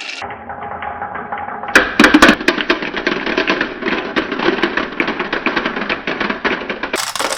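Marbles rolling and clattering down a marble run, a dense run of quick clicks and rattles, with a few loud knocks about two seconds in.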